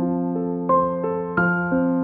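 Background music: a gentle keyboard melody, with a new note about every third of a second over held lower notes.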